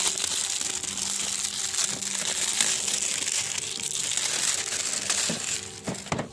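Thin plastic shrink-wrap film crinkling and crackling as it is peeled and pulled off a cardboard box, thinning out near the end into a few light knocks.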